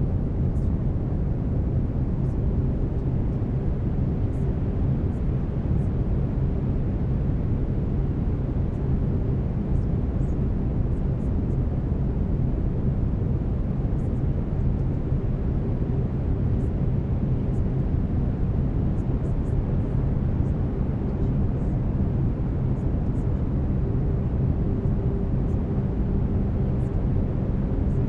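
Steady brown noise, a deep even hiss weighted toward the low end, with faint steady low tones from a binaural-beat track running underneath.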